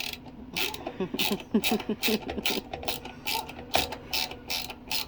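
Hand ratchet clicking in a steady rhythm, about two or three clicks a second, as screws are turned into the table frame.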